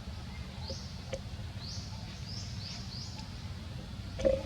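Outdoor ambience: a steady low rumble with birds giving several short rising chirps. A short, louder sound comes just before the end.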